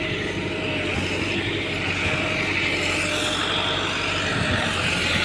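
Massey Ferguson 385 tractor's diesel engine running steadily.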